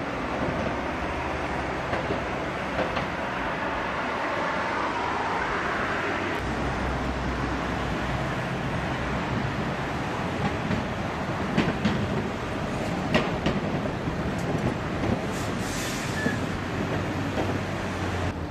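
Heritage electric tram running along street track, its wheels clacking several times over the rail joints a little past halfway and giving a brief high squeal near the end, with passing traffic.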